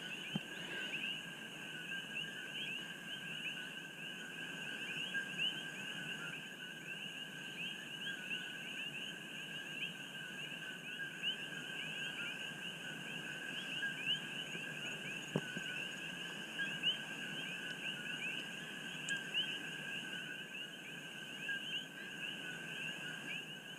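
Dense chorus of many coqui frogs calling at once, their overlapping calls each a lower note followed by a short rising higher note, repeating without pause.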